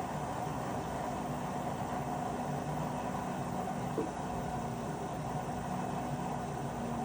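LG WM3900HBA front-loading washer running with a steady drone and one short clunk about four seconds in, the strange clunking the machine has been making.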